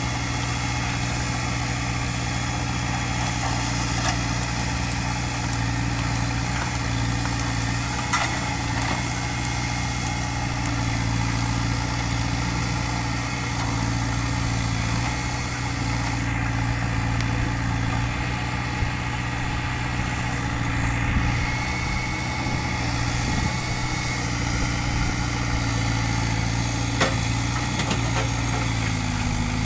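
Heavy earthmoving machine's diesel engine running steadily at low revs, with a few short sharp clanks.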